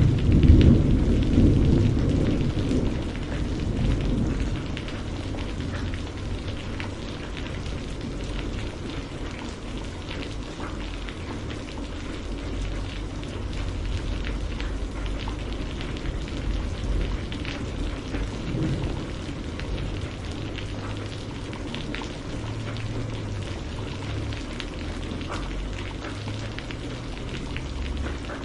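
Steady rain falling, with scattered drop ticks. A low rumble of thunder is loudest in the first second or two and dies away over the next few seconds.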